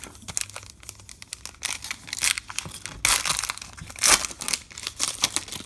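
Foil trading-card pack wrapper crinkling in the hands as it is torn open, with the loudest rustling about three and four seconds in.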